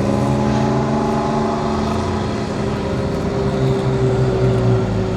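Zenvo TSR-S's supercharged and turbocharged 5.8-litre V8 running at steady revs, its pitch holding nearly level with a slight sag partway through.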